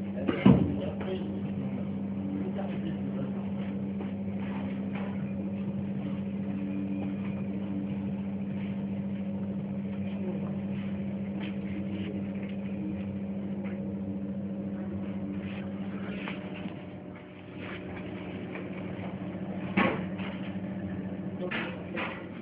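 Ultrasonic plastic tube sealing machine running with a steady low hum, with sharp mechanical clacks about half a second in and again near the end.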